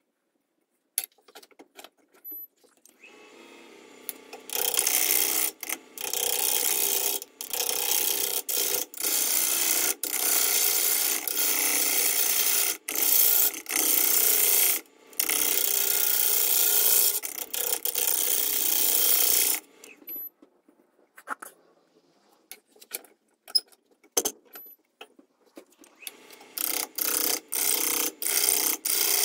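A steel turning tool cutting a spinning eucalyptus burl blank on a wood lathe: loud scraping of wood being sheared away, in a run of passes broken by short gaps. Near the middle it drops to a quieter stretch with scattered clicks, then the cutting starts again in short, choppy passes.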